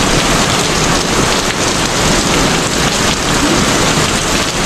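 Heavy rain falling in a steady downpour, an even hiss of water on the ground and on a parked car.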